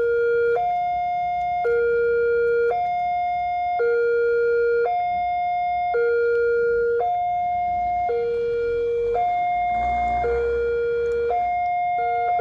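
Railway level-crossing warning siren sounding its two-tone hi-lo alarm, a low tone and a higher tone alternating about once a second, warning of an approaching train. A rushing noise swells underneath in the second half.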